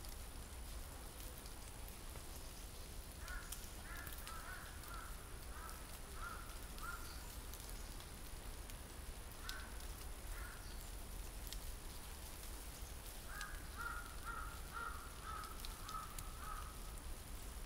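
A crow cawing in three runs of short, quick caws, a few a second, with pauses between the runs.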